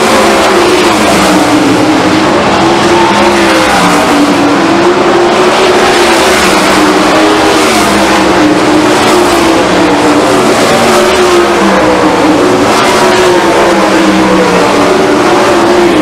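A field of 410 sprint cars racing, their 410-cubic-inch V8 engines running loud all at once, the overlapping engine notes rising and falling in pitch as the cars speed up and back off around the dirt oval.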